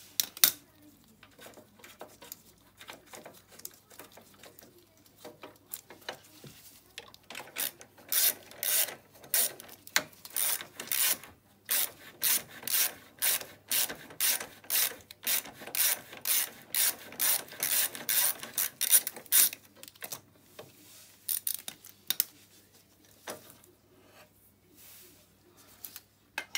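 Ratchet wrench clicking in quick runs as its handle is swung back and forth, undoing the bolts of a moped's rear footrest bracket. The runs come about twice a second through the middle stretch and are sparse at the start and near the end.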